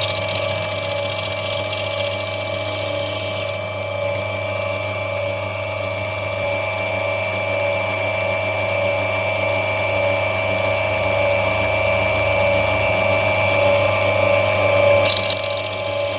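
Electric lapidary grinding wheel running steadily with water feed while opal is rubbed back on it. A loud hissing grind as the stone is pressed to the wheel lasts for the first three and a half seconds and comes back near the end.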